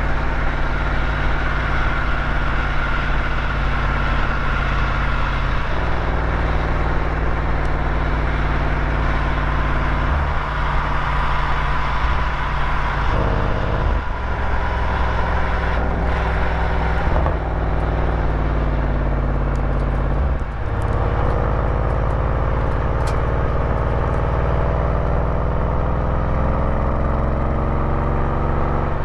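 Road vehicle's engine and road noise recorded on board while driving, steady at first, with the engine note breaking and changing pitch several times as gears are shifted. In the last third the engine pitch climbs steadily as the vehicle accelerates.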